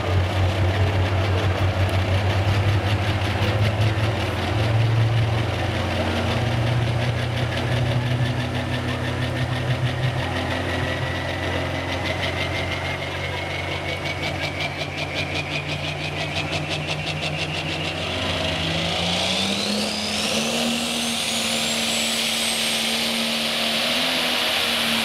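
Turbocharged diesel pulling tractor idling at the starting line with a high whine slowly climbing in pitch. About eighteen seconds in the engine is revved up, and the whine rises steeply to a high pitch.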